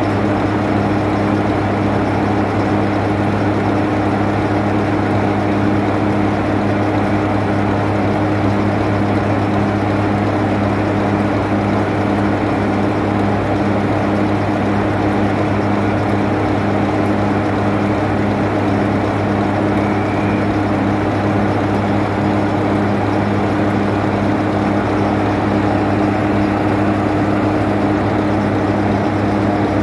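Class 45 diesel-electric locomotive's Sulzer 12-cylinder diesel engine idling steadily: a loud, constant low drone with an unchanging hum.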